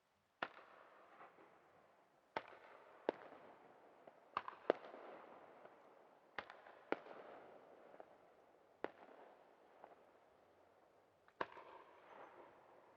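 Aerial firework shells bursting: about nine sharp reports at irregular intervals, beginning about half a second in, each trailing off in echo.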